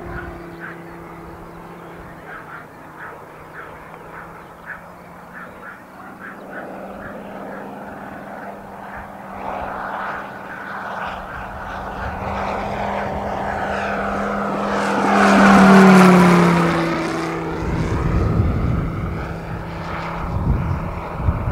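RC Hawker Sea Fury model's Moki 250cc five-cylinder radial engine, turning a large five-bladed propeller through a planetary gear, running at a steady note in flight. It grows louder as the model comes in, is loudest as it passes overhead about two-thirds of the way through, then drops in pitch as it flies away.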